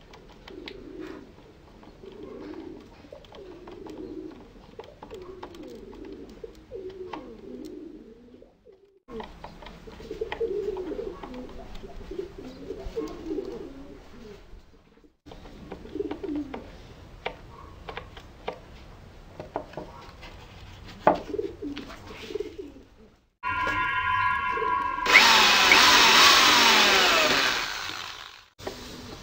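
Screwdriver turning screws into a pine board, with small scattered clicks, while pigeons coo in the background. Near the end a corded electric drill spins up with a whine, then bores loudly into the wood for about three seconds, its pitch dropping under load.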